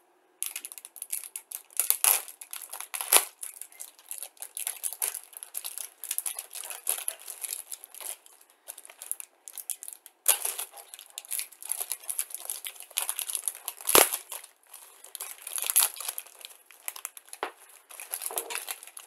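Thin clear plastic bags crinkling as plastic model-kit sprues are handled. Two sharp clicks stand out, about three seconds in and near fourteen seconds.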